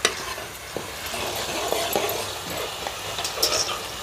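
Ground masala paste sizzling as it roasts in hot oil in a pot over a wood fire, with a metal ladle scraping and clinking against the pot as it is stirred.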